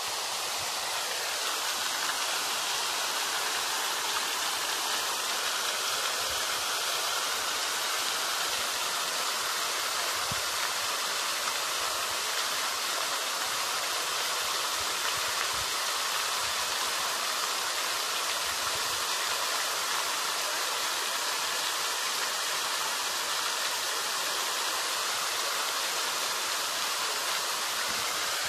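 A steady, unbroken rushing hiss, like running water, with no change in level.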